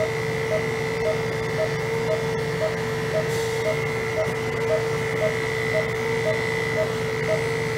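Electric animal clippers with a #40 blade running steadily as they shave a dog's belly hair close to the skin. A short beep repeats evenly about twice a second over the hum.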